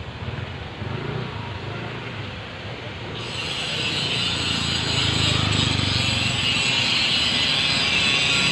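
Street traffic: the low rumble of car and motorcycle engines on the road, joined about three seconds in by a steady high hiss as the sound grows louder.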